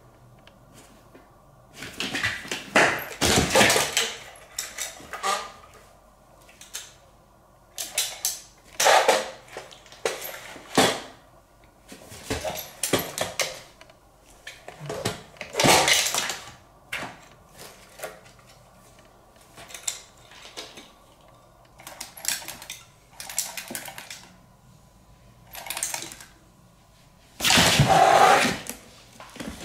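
Hard plastic cat toy clattering and knocking in repeated bursts, about one every one to three seconds, as a cat bats and wrestles it on a cardboard box floor. The loudest clatter comes near the end, when the cat tackles the toy's base.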